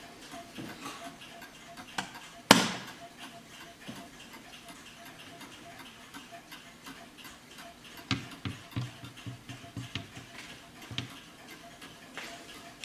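Warmink mantel clock movement ticking steadily, with one loud, sharp knock about two and a half seconds in and a few soft, low thumps later on.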